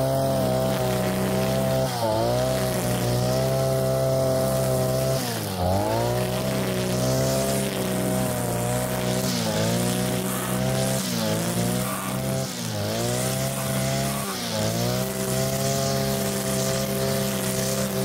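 Brush cutter engine running at high revs while trimming long grass. Its pitch dips briefly and recovers every second or two as the cutting head bites into the grass.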